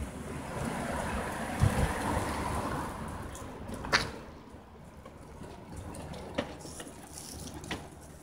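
Street noise from passing traffic, fading over the first three seconds, then a sharp click about four seconds in and a few fainter ticks.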